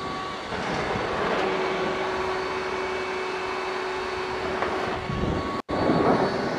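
Ryobi RTS08 compact table saw running: a steady motor whine under a rushing noise, dropping out for an instant a little after five seconds in.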